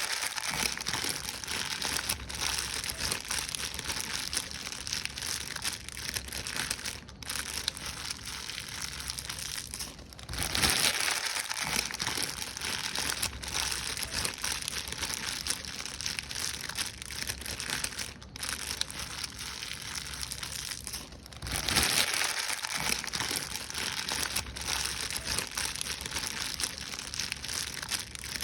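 Paper being crumpled and crushed by hand: a continuous crackling and crinkling that runs on with only brief pauses, growing louder twice, about a third of the way in and again about three quarters of the way in.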